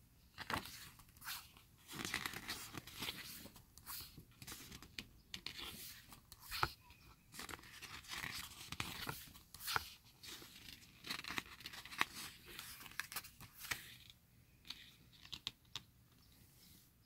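Pages of an album photo book being turned and handled: paper rustling and crinkling with sharp flicks, thinning to a few soft ticks near the end.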